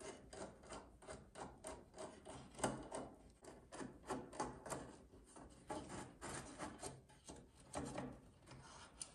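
Small screwdriver turning screws out of a Goldshell Mini Doge miner's case, with faint irregular clicks and scraping of metal on metal.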